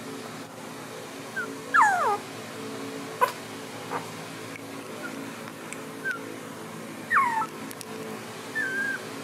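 Young border collie puppies whimpering: high squeals that fall steeply in pitch, the loudest about two seconds in and again about seven seconds in, with short high peeps between. A single sharp click about three seconds in.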